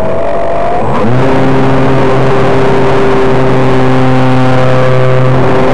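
RC T-28D Trojan model's motor and propeller running in flight, heard from on board with wind rushing past. About a second in the steady high tone drops away and a louder, lower hum with overtones takes over and holds steady.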